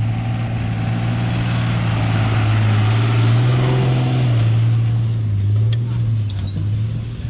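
A four-wheel drive's engine droning steadily while driving, its pitch lifting a little midway and dropping back, with a constant rush of driving noise over it.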